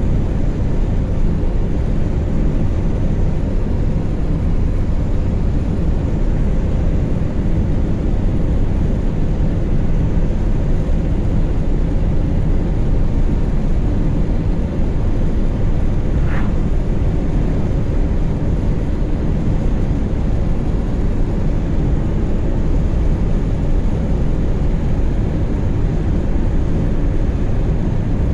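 In-cabin drive noise of a VW Gol with the 1.6 CHT engine: engine running at a steady road speed under tyre and road rumble. The car is down on power, which the driver blames on the carburettor.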